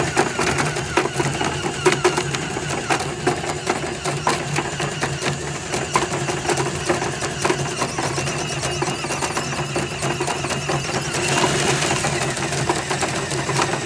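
Power drill running steadily, spinning a tank-cleaner cable inside a water heater to break up the sediment at the bottom of the tank, with a rattling clatter over the motor's hum; it gets a little louder about eleven seconds in.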